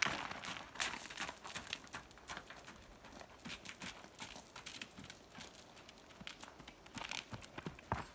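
Paint horse's hooves hitting the gravel footing of a round pen as it circles, a quick run of crunching hoofbeats. They are loudest at the start, grow faint in the middle as the horse goes round the far side, and grow louder again near the end.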